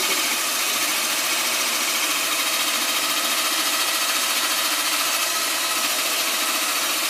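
Power drill spinning a stirring wand inside a glass carboy of wine, a steady whir that holds even throughout. It is mixing in Sparkolloid fining agent and degassing the wine.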